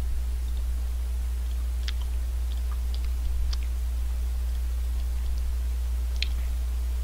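Mouth sounds of a person eating a vanilla almond ice cream cone: scattered small wet clicks and crackles of licking and biting the ice cream, the clearest about two, three and a half and six seconds in. A steady low hum runs underneath throughout and is the loudest thing.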